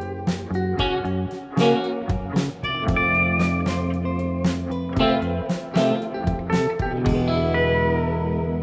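Background music led by plucked guitar over a steady bass line, with notes struck at a regular beat.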